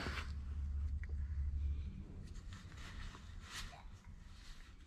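Faint scratching and light rubbing of gloved fingers working on the engine's water-pump mounting face, in a few scattered strokes. A low hum underneath dies away about two seconds in.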